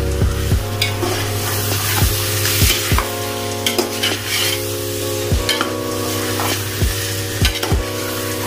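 A metal spoon stirring and scraping chicken masala around an aluminium pot, the mixture sizzling in hot oil, with the spoon rasping against the pot wall again and again.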